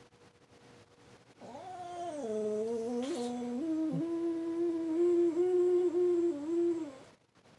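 Frenchton (French bulldog–Boston terrier mix) howling: one long, wavering howl that starts about a second and a half in and lasts over five seconds, stepping up and down in pitch before it stops.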